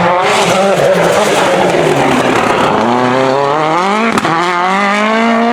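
Rally car engine under hard acceleration: the note wavers as the driver feathers the throttle, then climbs steadily from about halfway. About four seconds in there is a brief click and dip in pitch, like a quick gear change, before it keeps rising.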